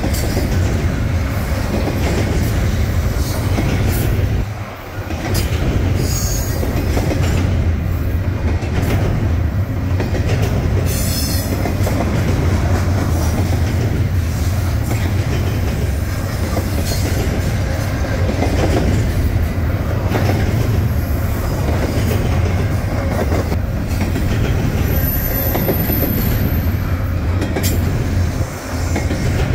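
Double-stack intermodal well cars rolling past at trackside: a steady loud rumble and clatter of steel wheels on rail, dipping briefly twice. A short high-pitched wheel squeal comes in near the end.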